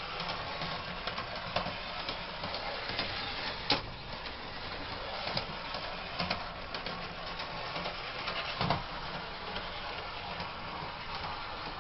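Lionel model trolley running along a shelf-mounted track: a steady whirring rumble of its electric motor and wheels on the rails, with a few sharp clicks along the way.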